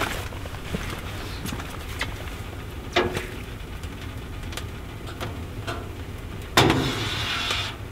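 Maple sap boiling hard in a wood-fired evaporator pan: a steady low rumble, with a few light knocks and a louder rush of noise near the end as foam is skimmed from the pan with a spaghetti strainer.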